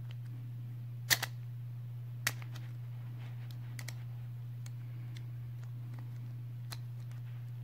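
Sharp plastic clicks of a Beyblade Burst top being twisted apart by hand: a loud double click about a second in, another a second later, then a few faint ticks, over a steady low hum.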